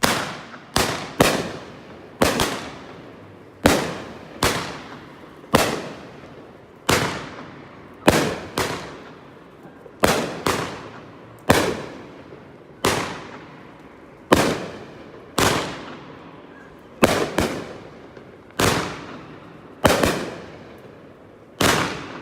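Shogun 'Break Through' 16-shot firework cake firing its shots one after another: a run of sharp bangs about once a second, some coming in quick pairs, each dying away before the next.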